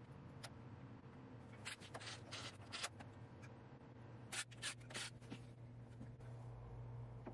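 Faint handling noises, clicks, rubs and short scrapes, as hands and a hex key work a linear bearing block on its aluminium rail. They come in two clusters, about two and four and a half seconds in, over a low steady hum.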